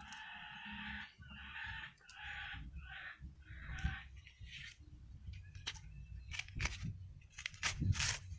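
A chicken calling, a run of about five calls over the first four seconds. From about halfway, sharp cracking and tearing as the fibrous leaf sheaths of a banana sucker are peeled off by hand, loudest near the end.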